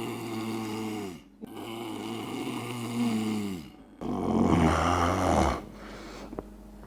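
A man snoring: three long snores, each dropping in pitch as it ends, the third louder and rougher than the first two.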